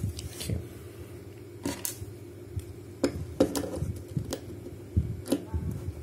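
Dial of a Master Lock dial combination padlock being turned by hand, with irregular small metallic clicks and taps as the lock is handled. A faint steady hum runs underneath.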